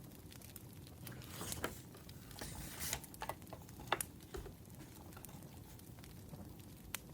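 Wood fire crackling, with sparse sharp pops, and paper rustling about one to three seconds in.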